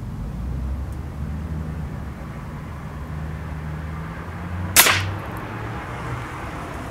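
A single shot from an RWS Diana 34 break-barrel spring-piston .177 pellet rifle: one sharp crack about two-thirds of the way in, over a steady low rumble.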